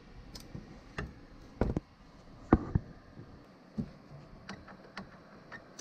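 A few scattered light clicks and taps, irregularly spaced, the loudest about two and a half seconds in.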